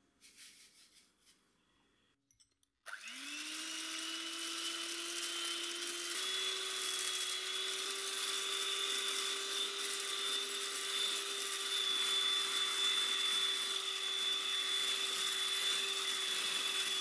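Electric mixer whipping egg whites with sugar: the motor starts about three seconds in with a whine that rises as it spins up, steps up in pitch about six seconds in as it goes to high speed, then runs steadily. A few faint soft sounds come before the mixer starts.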